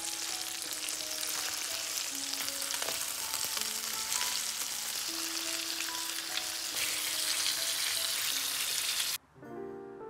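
Raw chicken thighs sizzling steadily in hot oil and butter in a frying pan, a dense, even crackle. The sizzling cuts off suddenly about nine seconds in, leaving soft background music.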